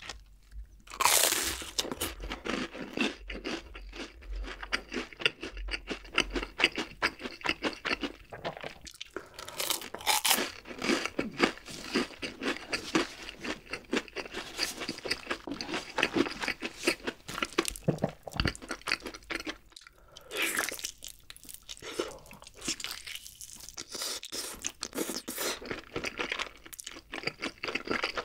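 Close-miked crunching and chewing of deep-fried shrimp toast (menbosha): a loud crunchy bite about a second in, then dense, irregular crunching and chewing.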